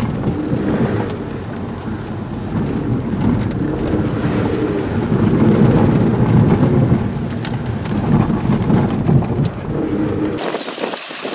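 Inside a car's cabin on a rutted gravel dirt road: a heavy, uneven rumble of tyres on gravel and the body jolting over the ruts, swelling in the middle. About ten seconds in it cuts abruptly to a quieter, steady engine idle.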